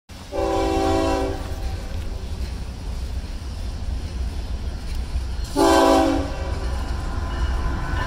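Diesel freight locomotive's air horn sounding two blasts, about a second and then under a second long, over the steady low rumble of a passing freight train.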